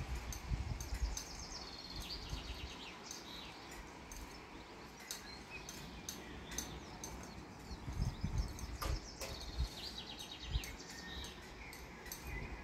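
Outdoor ambience: gusts of wind buffet the microphone in a few low bursts, the strongest about eight seconds in, while birds chirp in short rapid trills, twice.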